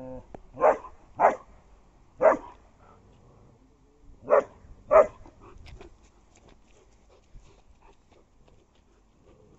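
Young German shepherd barking five times in short, sharp barks over the first five seconds, the last two close together, followed by faint scuffling.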